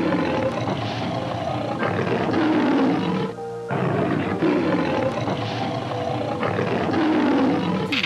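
A lion roaring in a series of long, rough calls, broken by a short pause a little past three seconds, over background music.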